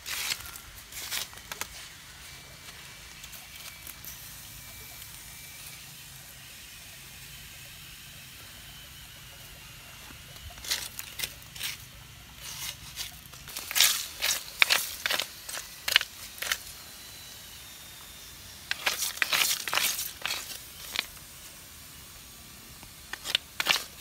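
A stick raking and scraping through charcoal and gravel, with crunching and rattling of small stones in several short bouts separated by quieter stretches.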